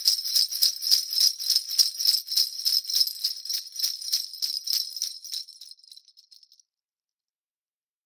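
Sleigh bells (reindeer bells) shaken in a steady rhythm of about four jingles a second, fading out about six seconds in.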